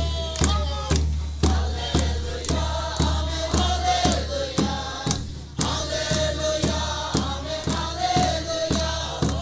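A group of men and women singing a Christian gospel chorus together in unison, with a large double-headed drum beaten steadily about twice a second.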